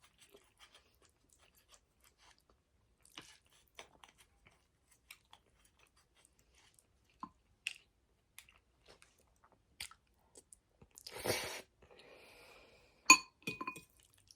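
Close-up mouth sounds of someone eating spaghetti: soft, scattered wet chewing clicks, with a longer noisy burst about eleven seconds in. Near the end comes a sharp clink that rings briefly.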